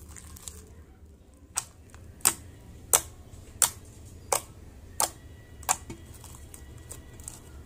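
Fingertips poking into a soft disc of homemade shampoo glitter slime, each poke giving a sharp popping click: seven in a row, about two-thirds of a second apart.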